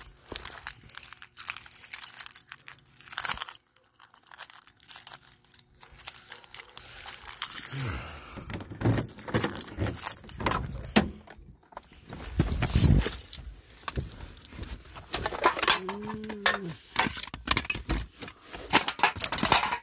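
Rummaging and handling noise: irregular clinks, rattles and rustles of loose items being dug through, likely while searching the car for a zip tie. About sixteen seconds in there is a brief rising-and-falling tone.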